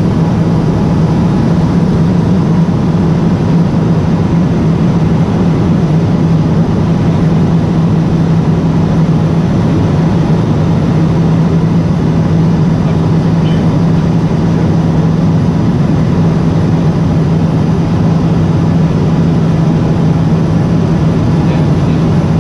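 Steady drone of a Cessna P210 Silver Eagle's Rolls-Royce turboprop engine and propeller in flight, heard inside the cockpit: a strong low hum over an even rushing noise.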